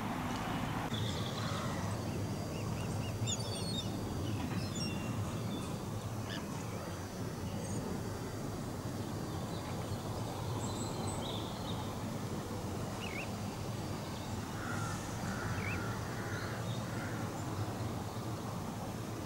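Outdoor waterside ambience: birds call now and then over a steady low rumble.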